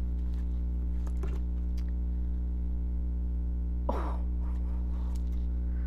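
Steady low electrical hum, with a short vocal sound from the reader about four seconds in and a couple of faint clicks near the start.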